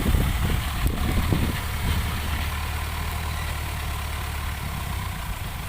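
Engine running steadily at idle: an even, low hum that eases off slightly over the few seconds.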